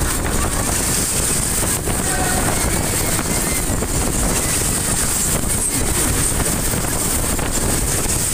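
Steady rush of wind over the microphone and the running noise of a Sobema Matterhorn fairground ride spinning fast, heard from one of its cars.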